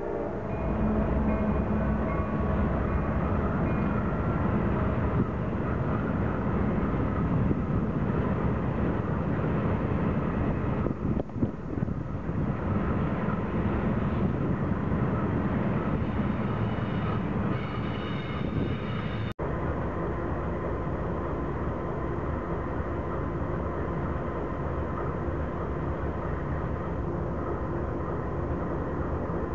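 Double-stack intermodal freight cars rolling past close by, a steady rumble and clatter of wheels over the rails. About two-thirds of the way in it cuts suddenly to a steadier, slightly quieter rumble.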